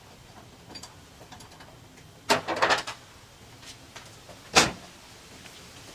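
Metal hood-hinge bracket hardware being handled: a short clatter of clinks about two seconds in and one sharp knock a little past halfway, with a few faint ticks between.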